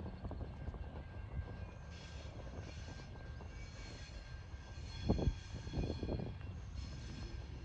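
TasRail TR class diesel locomotives hauling a freight train, heard as a steady low engine rumble, with a brief louder burst about five seconds in.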